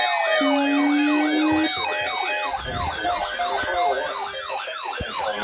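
Layered electronic siren tones: several warbling yelps, each rising and falling about four times a second, overlap with falling sweeps and a steady low hum that stops a little under two seconds in. The tones ease off slightly after that, and there is a sharp click near the end.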